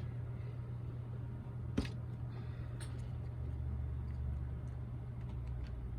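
Steady low hum, with a deeper hum joining in for a second or two in the middle, one sharp click about two seconds in, and a few faint ticks.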